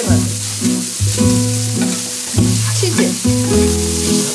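Ground-beef hamburger patties sizzling as they sear on a hot steel griddle plate, a steady hiss, over background music with a line of stepped, held bass notes.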